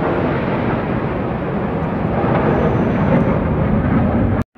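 Military aircraft passing overhead: a loud, steady engine rumble from the sky that cuts off suddenly at the end.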